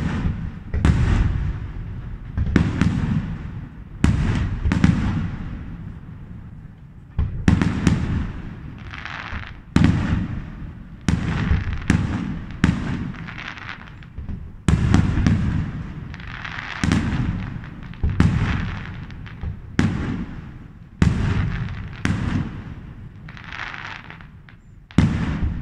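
Aerial fireworks shells bursting in quick succession, about one loud bang every second or two, each followed by a rolling rumble. Bursts of hiss between some of the bangs.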